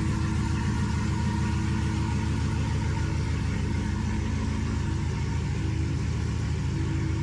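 Cadillac CTS-V Wagon's supercharged V8 idling steadily, with an even pulse and no revving.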